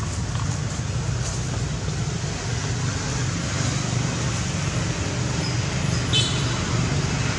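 Steady low rumble, with a brief high squeak about six seconds in.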